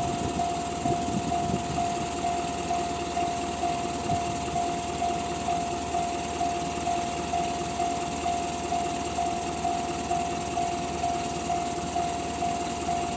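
Japanese railway level-crossing warning alarm of the Tohoku type, an electronic bell sounding one pitched tone that repeats at a steady, even rhythm: the crossing is active for a train. A low rumble dies away in the first couple of seconds.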